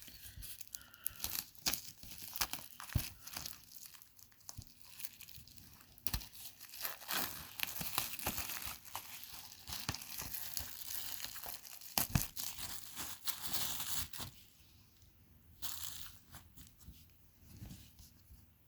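Plastic shrink-wrap being torn and peeled off a DVD box set, crinkling and crackling with many sharp snaps. The handling turns sparser and quieter near the end.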